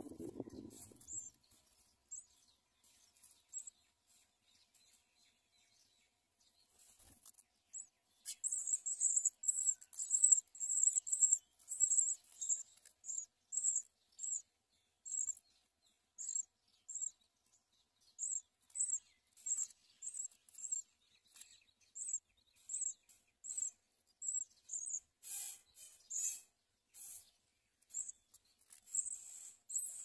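Nestling songbirds begging with thin, very high peeps repeated a few times a second, starting about a quarter of the way in and running on, with a harsher, louder flurry of calls near the end.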